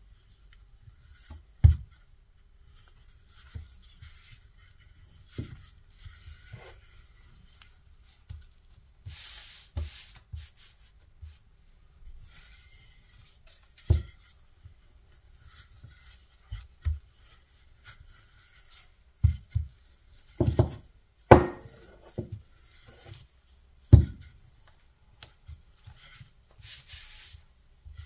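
Wooden rolling pin rolling out shortcrust pastry dough: a soft rubbing of the pin over the dough and sheet, broken by scattered dull knocks as the pin is pressed, lifted and set down. The louder knocks bunch up a little past the middle, and two longer rubbing passes come about a third of the way in and near the end.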